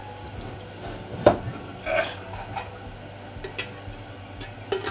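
A pickle being fished out of a large glass jar of pickles in brine: one sharp knock against the glass about a second in, then a few softer clinks and knocks.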